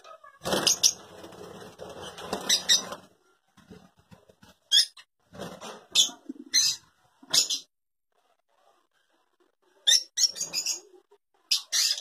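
Lovebirds in an aviary giving short, high-pitched chirps in quick runs about half a second apart, with a quiet gap of about two seconds between runs. The first three seconds hold a louder stretch of rustling noise.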